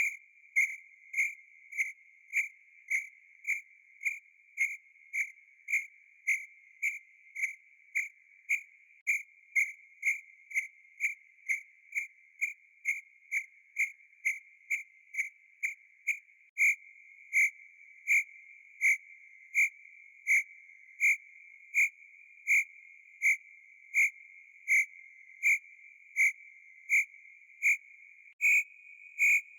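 A single cricket chirping in a steady, even rhythm, about two short chirps a second, slowing to a little over one a second about halfway through.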